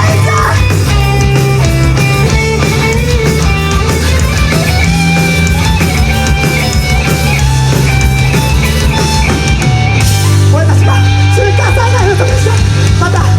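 Rock band playing live, loud and full: electric guitar and bass over drums in an instrumental passage without vocals.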